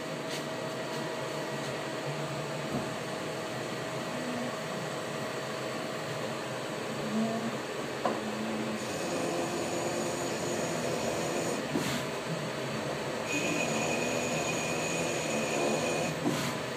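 BL-X36 slant-bed CNC lathe running a threading cycle: a steady machine hum from the spindle turning the part. About halfway a high thin whine comes in, grows stronger, then breaks off near the end, with a couple of short clicks along the way.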